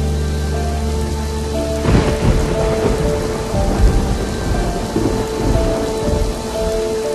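Thunder rumbling over steady rain. The rumble rolls in about two seconds in and fades over the next few seconds, under soft background music with long held notes.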